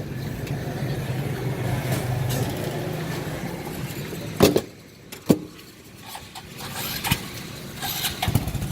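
A motor vehicle's engine running steadily, dying away about four and a half seconds in. Several sharp clicks and clacks follow.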